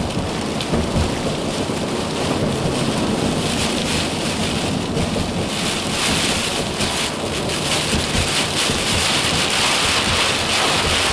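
Heavy rain drumming on a moving vehicle's windshield and roof, heard from inside the cabin as a steady dense patter with road noise underneath.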